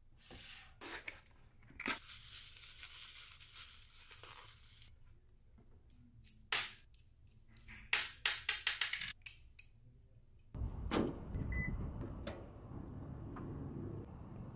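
Tearing, rustling handling noise for several seconds, then a sharp click and a quick run of small clicks as a plastic grille badge with threaded mounting studs is handled. After that comes a steady low outdoor hum.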